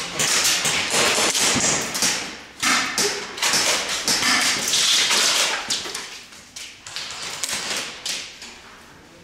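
Airsoft guns firing indoors: dense rapid clicks and pops, loud for about six seconds, then thinning to scattered shots.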